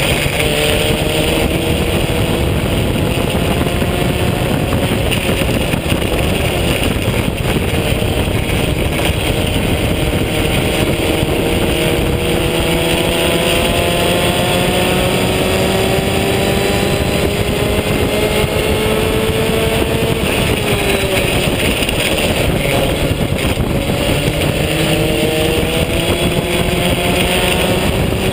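Open-wheel race car's engine heard from the cockpit, running hard with its pitch climbing slowly for about twenty seconds, dropping briefly as the driver lifts, then climbing again near the end, over a steady rush of wind and mechanical noise.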